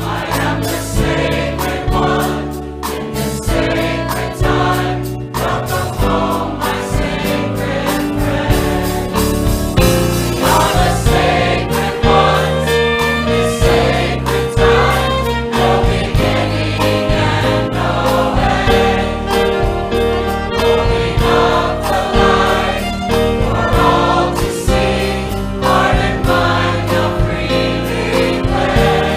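Choir singing a sacred song, with sustained notes and steady low tones underneath.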